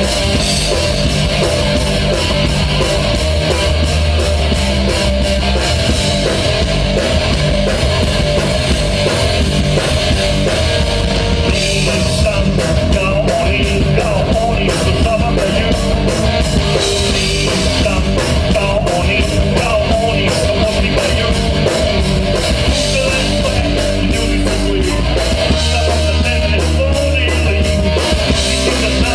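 Live rock band playing loud with a steady drum beat: electric guitar, bass guitar and drum kit, with a male singer at the microphone.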